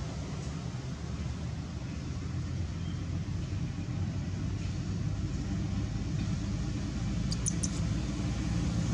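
Steady low outdoor background rumble with a faint hum, and a few short high ticks about seven seconds in.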